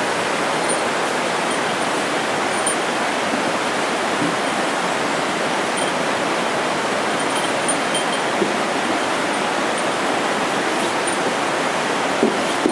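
Mountain river rushing in the gorge below, a steady, unbroken roar of water running high, with a few faint high chirps now and then.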